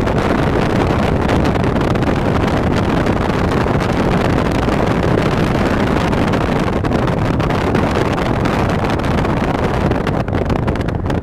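Steady road and wind noise from a moving car, with wind rushing over the microphone.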